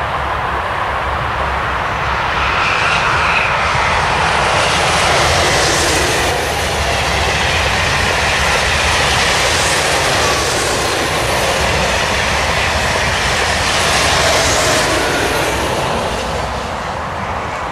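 Two coupled TGV Duplex double-deck high-speed trainsets passing: a loud rush of wheel and air noise that builds over the first few seconds, holds while the cars go by, and fades away near the end.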